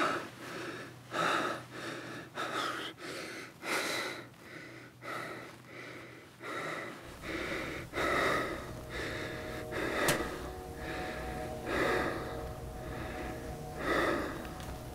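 An elderly man's quick, laboured, gasping breathing, about three breaths every two seconds, the breathing of someone in distress. About halfway through, a low steady drone comes in beneath it.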